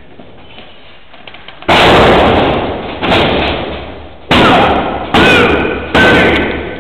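Heavy impacts on a wrestling ring's canvas, each booming and echoing in a large hall: a big landing about two seconds in, another a second later, then three slaps close together, the referee's pin count.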